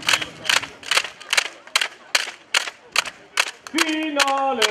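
An even beat of sharp claps, about two and a half a second. Near the end a voice breaks into a long shout that falls in pitch in steps.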